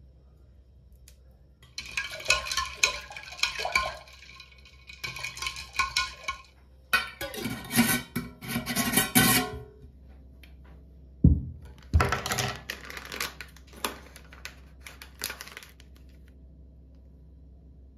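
Ice cubes clinking against a glass drink-dispenser jar of lemonade as it is handled, in several bursts of ringing clinks, with two dull knocks a little after halfway.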